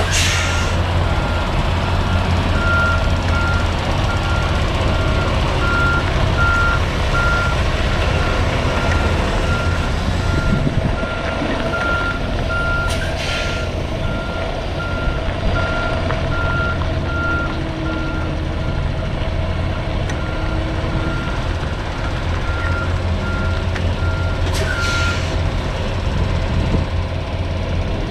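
Freightliner Cascadia semi-truck backing up with its reverse alarm beeping steadily at one pitch over the low running of its diesel engine; the beeping stops about 25 seconds in. Three short hisses sound near the start, about halfway, and just as the beeping stops.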